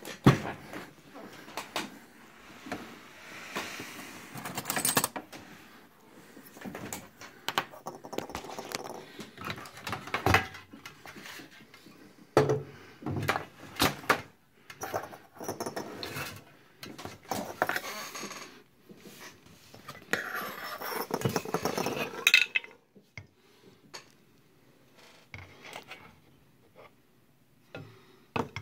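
Handling clatter on a workbench: a string of knocks, clinks and rustles as small metal cans and other items are picked up, moved and set down. It dies away about three-quarters of the way through, leaving only a few scattered clicks.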